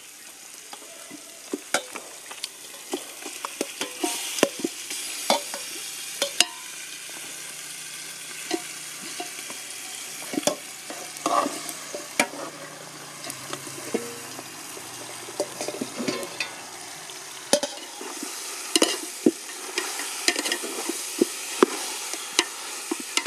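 Hot oil and spices sizzling in a steel pot as raw chicken pieces are scraped in from a steel bowl and stirred, with repeated sharp clanks of a metal spoon against the steel.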